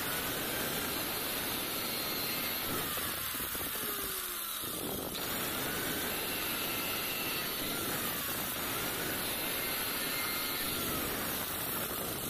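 DCA angle grinder in a bench stand cutting through a thin steel rod with a cut-off disc: a steady, harsh grinding noise, with the motor's whine dipping and rising as the disc bites into the rod.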